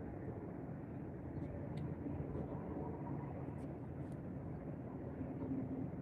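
Steady low outdoor background noise with a few faint clicks.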